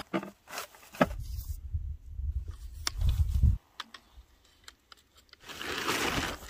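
Handling noises as a portable solar panel is set out to charge: scattered clicks and knocks, a sharp one about a second in, over a low rumble that stops abruptly partway through, with rustling near the end.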